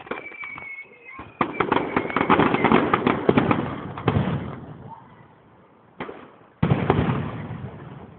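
Fireworks display: a high whistling tone fades out in the first second, then a rapid crackling barrage of bursts for about three seconds, followed by a single bang and another loud burst that dies away.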